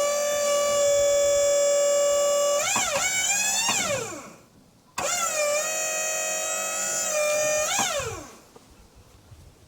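Wood-Mizer LT35 sawmill's band saw running through a cut in a walnut log as a steady high whine. The pitch rises and then falls as the whine winds down and stops. It starts again abruptly about five seconds in and repeats the same rise, fall and wind-down near the end.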